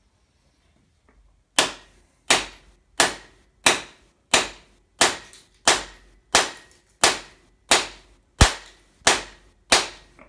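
A rubber mallet strikes a cam bearing installer tool 13 times in a steady rhythm, about one blow every 0.7 seconds, driving a cam bearing into an Allis Chalmers engine block's bore. Each blow is sharp with a short ringing tail, and it begins about a second and a half in.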